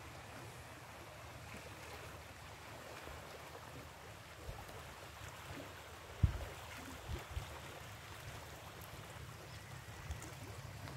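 Shallow sea water lapping and trickling among shoreline rocks, a steady soft wash. About six seconds in comes a sharp low thump, the loudest sound, and a couple of smaller low thumps follow about a second later.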